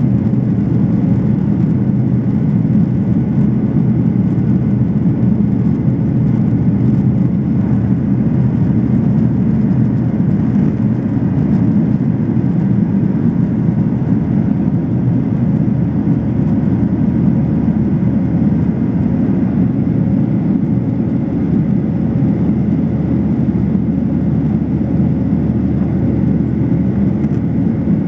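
Steady cabin noise of a Boeing 737-800 in the climb after takeoff, heard from a window seat behind the wing. The CFM56-7B engines and the rushing air make an even low rumble with a faint steady hum over it.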